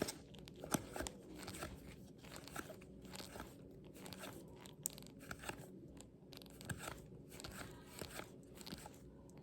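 Faint rustling and soft clicks of baseball trading cards being handled and flipped through by hand, card stock sliding against card stock.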